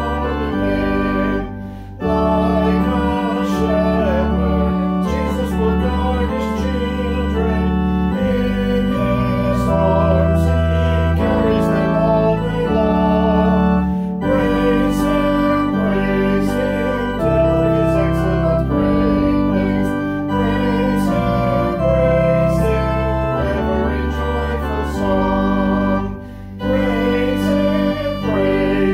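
Organ playing a hymn in sustained chords that change every second or so, with short breaks between phrases about 2 seconds and 26 seconds in.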